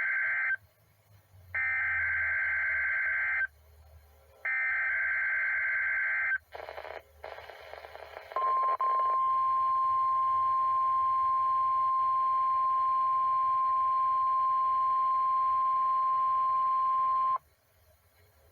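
NOAA Weather Radio weekly test alert received over a weather radio. The tail of one SAME digital header burst is followed by two more identical bursts of warbling data tones about a second apart. After a short gap comes the steady single-pitch 1050 Hz warning alarm tone, held for about nine seconds before it cuts off suddenly.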